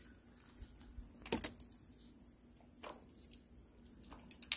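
A hooked crucian carp is lifted out of the water on the line, with a few brief splashes and ticks. The loudest cluster comes about a second and a half in, and a quick run of ticks comes near the end.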